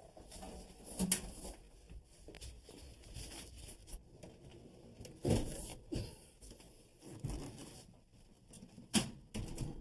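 Handling noise as an over-the-range microwave oven is lifted and hooked onto its wall mounting bracket: rustling and shuffling broken by a few knocks, the loudest about a second in, about five seconds in and about nine seconds in.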